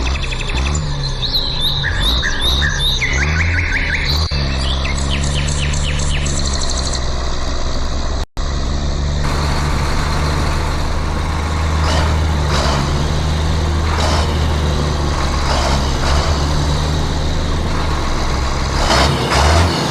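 Small birds chirping repeatedly over a steady low motor hum. After a brief dropout about eight seconds in, the hum carries on alone, with short scraping strokes every second or two.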